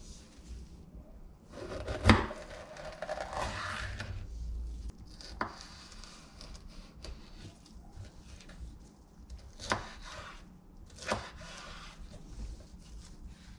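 Chef's knife slicing a red pepper into strips on a wooden cutting board: crisp cutting and rustling, with a few sharp knocks of the blade hitting the board, the loudest about two seconds in.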